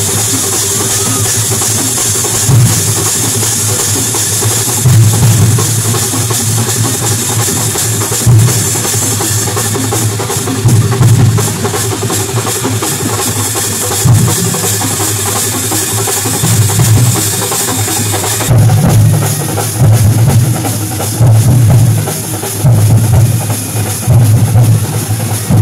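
Loud festival drumming: deep bass-drum beats every second or two over a dense wash of drums and cymbals. About three-quarters of the way through the treble thins and the bass beats come closer together.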